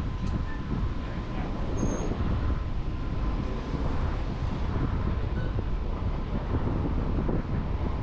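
Wind rumbling on the microphone over steady street traffic noise, with a faint steady whine in the background.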